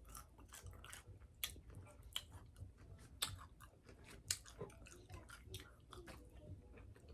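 A person chewing crispy fried chicken close to the microphone: quiet, irregular crunching crackles, a few a second, with some louder crunches among them.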